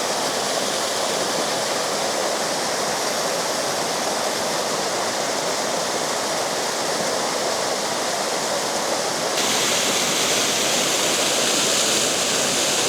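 Steady rush of falling water from a waterfall. About nine seconds in, it suddenly turns brighter and a little louder.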